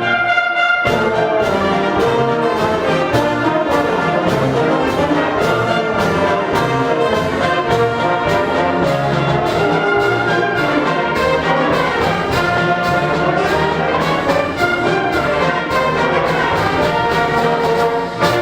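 High school concert band playing, with the brass section prominent over a steady beat.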